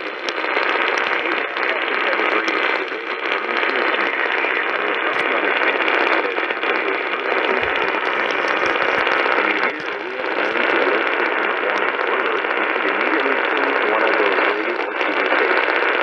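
Static and hiss from a Kaito Voyager Pro radio's speaker, steady with a faint crackle: a weak, noisy signal with no clear voice or alert tone.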